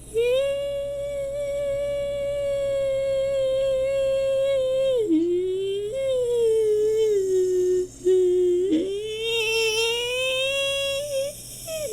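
A person humming a tune wordlessly in long, high held notes, with a dip in pitch about five seconds in and a brief break near eight seconds.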